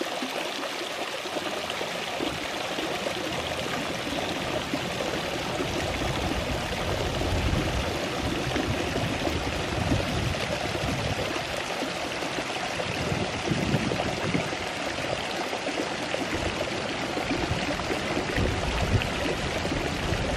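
Fountain water spilling in thin streams over the lip of a carved stone shell-shaped basin into a pool below, a steady trickling and splashing.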